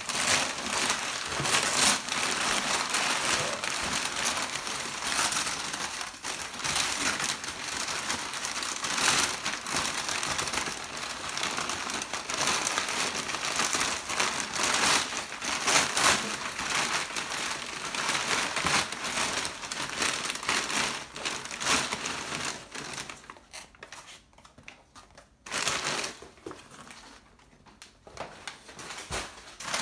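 Crumpled packing paper rustling and crinkling as hands dig through it inside a cardboard shipping box, full of quick sharp crackles. It goes on for about twenty seconds, then dies down to a couple of short rustles near the end.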